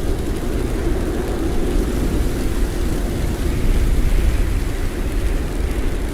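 Heavy blizzard wind howling: a steady, deep rumble with a hiss across the highs, swelling slightly about four seconds in.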